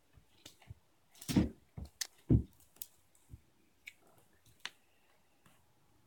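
Scattered soft thumps and sharp clicks of a cat playing with a fish wand toy on carpet, biting and batting at it. Two louder thumps come about one and a half and two and a half seconds in.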